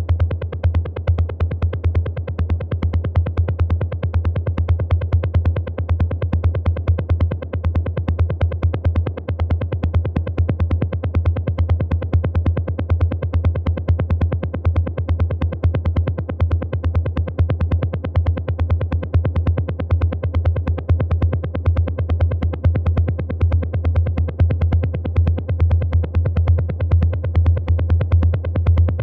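Techno drum-machine pattern from a Roland TR-8: a heavy, steady low kick and bass underneath fast, evenly repeating hi-hat ticks, playing continuously without a break.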